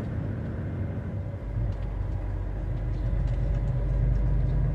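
Truck's diesel engine running while driving, heard inside the cab as a steady low rumble that grows louder about a second and a half in and keeps rising.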